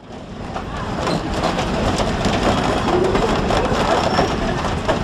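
Scenic-railway passenger train running on the track: a steady rumble with a rapid clatter of wheels on rails, fading in over the first second.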